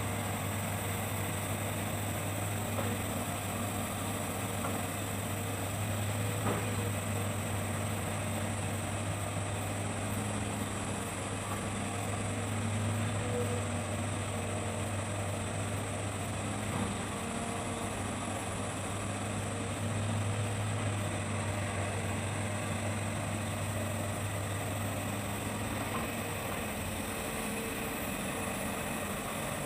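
Hitachi excavator's diesel engine running steadily with a low hum that swells slightly a few times.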